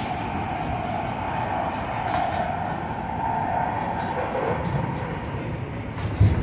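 MARTA rail car running at speed, heard from inside the car: steady rumble and rail noise with a droning tone, occasional light clicks, and a heavier thump near the end.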